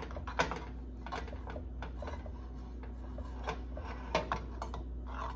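Light rubbing with scattered small knocks as butter is rubbed around a cupcake pan to grease it, over a steady low hum.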